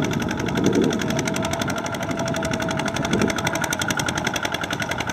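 Single-cylinder diesel engine of a two-wheel walking tractor running steadily under load, a fast even knock, as it drags a trailer of rice sacks through deep mud.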